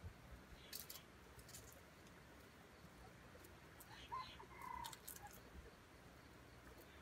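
Faint short call from a red junglefowl rooster, two brief notes about four seconds in, over near silence. A few faint ticks come about a second in.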